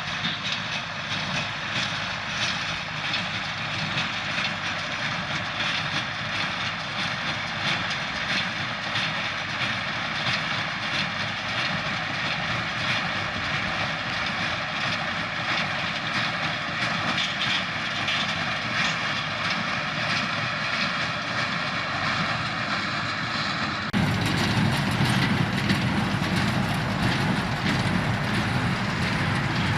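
Tractor engine running with a hay baler working in the field, a steady mechanical noise. About 24 seconds in the sound changes abruptly to a heavier, lower rumble.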